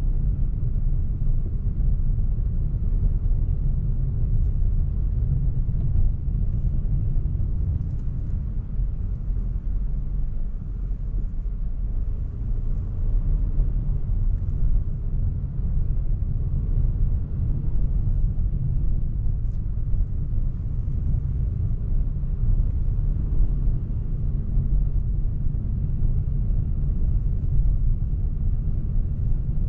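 Steady low rumble heard inside the cabin of a moving Toyota Yaris Cross: road noise together with its 1.5-litre three-cylinder petrol engine.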